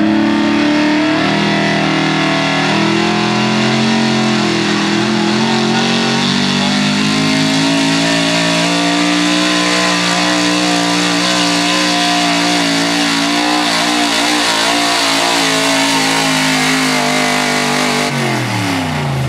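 A modified 4x4 pulling truck, a 1970s Ford F-series pickup, running hard while it drags a weight-transfer sled. The engine revs up at the start and holds high, slowly climbing revs through the pull. It drops off sharply in the last second or so as the driver lets off at the end of the run.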